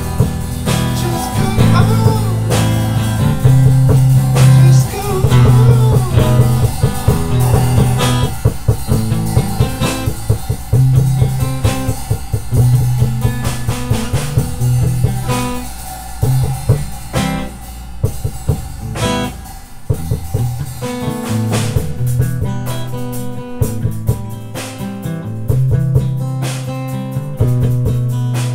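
Two-piece rock band playing: guitar with strong low riffing notes over a drum kit. The low notes and drums thin out briefly about twenty seconds in, then the full sound comes back.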